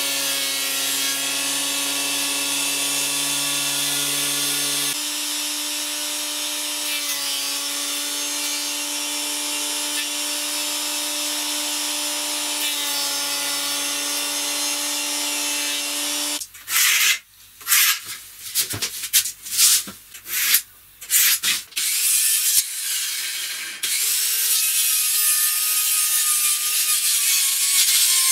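Benchtop jointer-planer running steadily, its motor humming under the hiss of the cutter head as a board is planed, for about the first sixteen seconds. Then a run of short loud bursts with breaks between, and near the end an electric circular saw running steadily as it cuts plywood.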